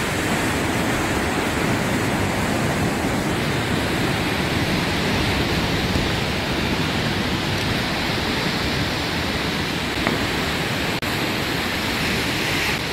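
Steady rushing noise of ocean waves and surf.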